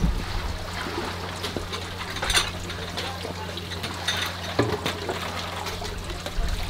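A kitchen knife knocking a few times on a cutting board as seafood is sliced and scraped off, over steady trickling water and faint background voices.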